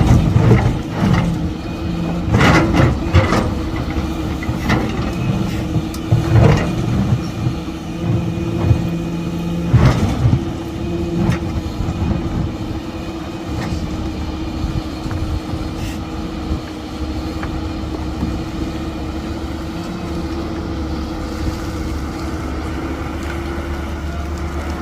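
Heavy construction machine's engine running steadily, with a series of sharp knocks and clanks during the first half.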